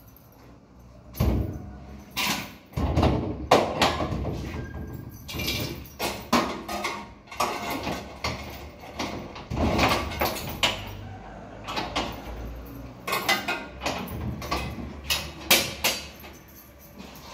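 Irregular knocks, bumps and clattering of objects being handled, dozens of sharp strikes at uneven spacing.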